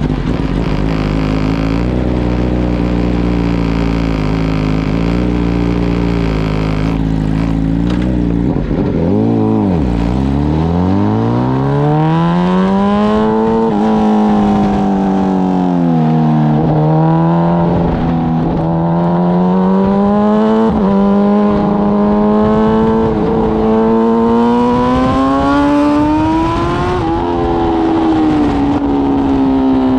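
BMW M 1000 RR superbike's inline-four engine, heard onboard. It runs at a steady note for the first several seconds, then the revs dip and climb as the bike pulls away. After that the revs rise again and again, each climb cut by a quick drop at an upshift.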